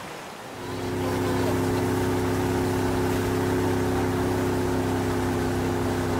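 Motorboat outboard engine running at a steady speed: a steady drone that comes in about half a second in, over a hiss of wind and water.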